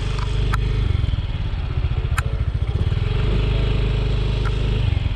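Small automatic motor scooter running at low speed, its engine hum mixed with wind buffeting the microphone as it rides.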